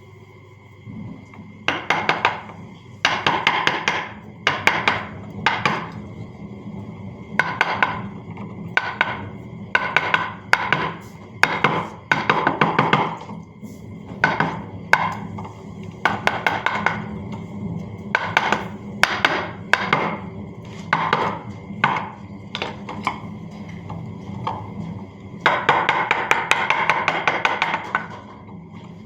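Mallet tapping a carving chisel into wood in quick runs of rapid strikes, pausing briefly between runs.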